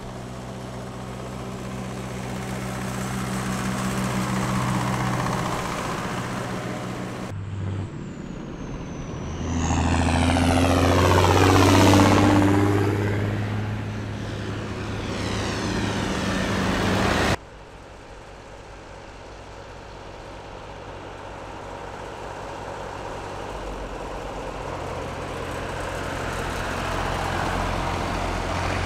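Tractor engines running along the road, with abrupt jumps in the sound twice; in the middle stretch a tractor passes close by, its engine rising to its loudest about twelve seconds in and then fading.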